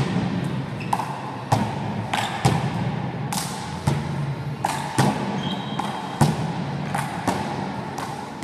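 One-wall handball rally: the hand-struck ball smacking against the wall and bouncing on the floor about a dozen times, at irregular intervals of half a second to a second, each impact echoing through the hall. Short squeaks of sneakers on the court floor come between some of the hits.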